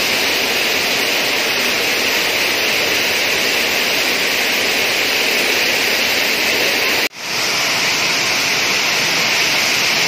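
Steady rushing of water pouring over a stepped concrete weir, with a brief break about seven seconds in.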